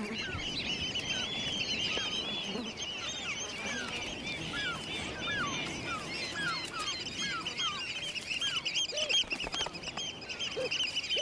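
A flock of wading birds calling on the shore: many overlapping shrill, piping calls repeating without a break, with shorter, lower, falling chirps mixed in.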